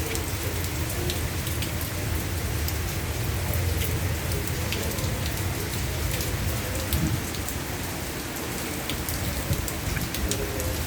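Steady rain falling, with scattered sharp ticks of individual drops striking surfaces.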